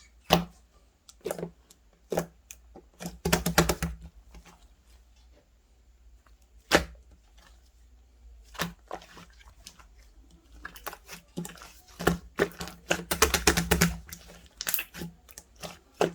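Ice clinking and cracking in irregular bursts of sharp clicks, sparse around the middle and denser near the end.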